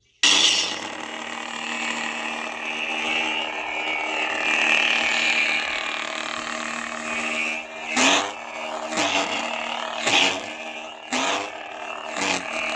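Saberforge Gen 4 Eco Bastion lightsaber's sound board igniting and humming through its stock speaker, which crackles and sounds fuzzy; about five short louder bursts come in the last few seconds. The distortion is, apparently, the saber putting out more power than the small 2-watt speaker can handle.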